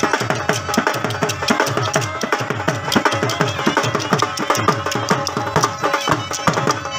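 Live traditional folk band music: fast, driving dhol drumming under a sustained wind-instrument melody, played for dancers.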